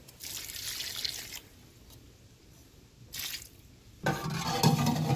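Water poured out of an electric smoker's metal water pan: a short pour, then a brief second splash about three seconds in. A louder sound follows near the end.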